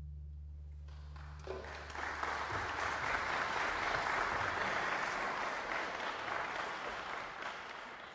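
A low held chord from the string orchestra dies away, and audience applause breaks out about a second and a half in and carries on.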